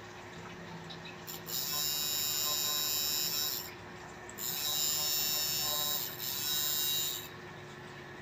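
Tattoo machine buzzing at a high pitch in two runs, about two and three seconds long, as the needle works into practice skin.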